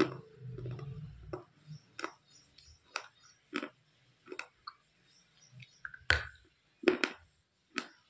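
Close-up mouth sounds of biting and chewing a hard, chalky stick, with a series of sharp, dry crunches about one every half second to second. The two loudest crunches come about six and seven seconds in. A low hum sounds during the first second or so.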